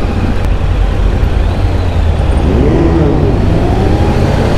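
A sport motorcycle riding in city traffic, picked up by a helmet microphone: a steady loud rumble of wind and engine, with an engine note that rises and falls about three seconds in.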